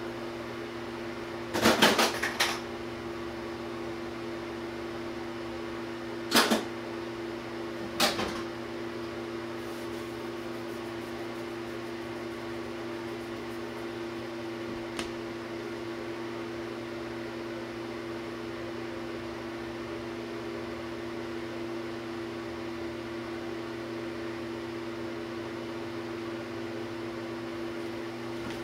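Objects clattering and knocking as they are handled during bathroom fitting work: a short burst of clatter about two seconds in, then two single knocks a couple of seconds apart, over a steady hum.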